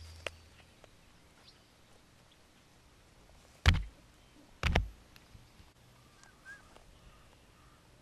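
Two short, heavy thumps about a second apart, the loudest sounds, over a quiet open-air background, followed by a couple of faint chirps.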